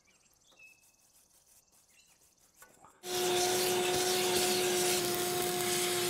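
Faint scratching as a small brush is worked over the cooling fins of a Deutz air-cooled diesel engine. About three seconds in, a loud steady rush of air with a steady low hum starts suddenly.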